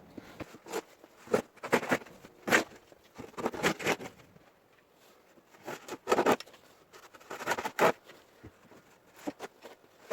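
Footsteps crunching through fresh snow: a run of irregular crunches, with a pause of about a second and a half midway before they pick up again.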